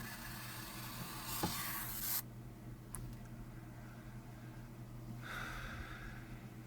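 Xiaomi Redmi Note 3 Pro phone speaker giving out a harsh hiss with faint tones in it, which cuts off about two seconds in, then a click, then another short burst of hiss near the end: the faulty, distorted sound output of the phone.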